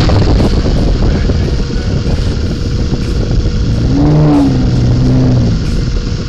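Electric motor and caged air propeller of an Aquacraft Mini Alligator Tour RC fan boat spinning fast, a loud steady hum with air rushing over the microphone. About four seconds in, the pitch rises and then falls back.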